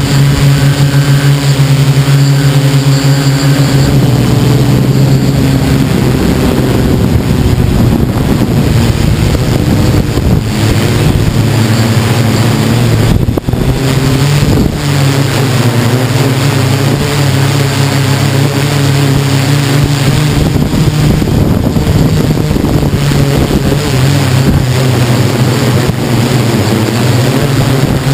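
Tarot 690S hexacopter's six electric motors and propellers humming steadily, heard close from the camera mounted on the craft, with wind buffeting the microphone. The hum shifts a little in pitch as the craft manoeuvres, with a brief drop in loudness about halfway through.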